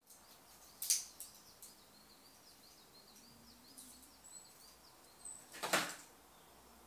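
Small birds chirping quickly and continuously outside an open window, with two brief knocks on the windowsill, one about a second in and a louder one near the end, as a squirrel moves about and leaves the sill.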